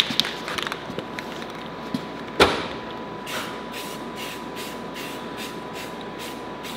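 Aerosol can of primer: its mixing ball rattles briefly, a sharp click comes about two and a half seconds in, then the spray hisses in quick pulses, about three a second, as light coats of primer go onto sheet metal.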